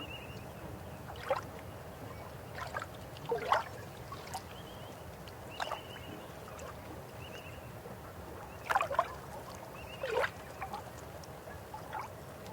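River water running steadily, with irregular gurgles and plops, each rising quickly in pitch, the loudest about three and a half seconds in and again near nine and ten seconds. A few faint short high chirps sound between them.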